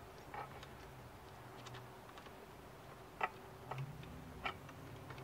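A few faint, sharp metallic clicks as a bolt is worked by hand through a steel luggage-mounting bracket, over a faint low hum.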